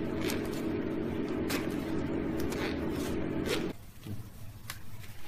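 Steady electrical hum from a radio-frequency plastic welding machine that cuts off suddenly about two thirds of the way in. Over it come the crinkles and light taps of a clear PVC bag being handled on the machine table.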